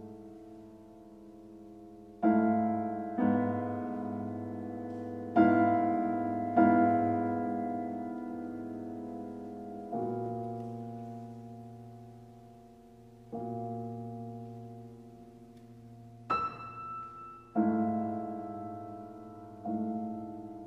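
Steinway grand piano played solo: slow, widely spaced chords, each struck and left to ring and die away, with a brighter, sharper high note about three-quarters of the way through.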